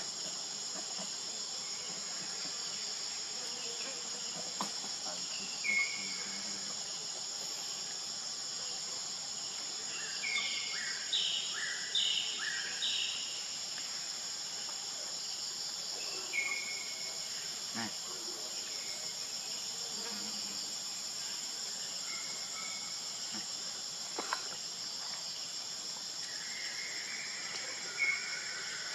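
Steady, high-pitched drone of an insect chorus, with a few short high chirping calls, a brief cluster of them about ten to thirteen seconds in, and a few faint clicks.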